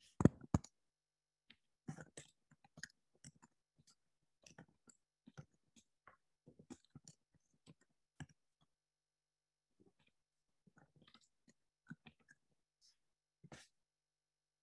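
Sparse, irregular small clicks and taps, mostly faint, with a louder knock just after the start and a second one about half a second later.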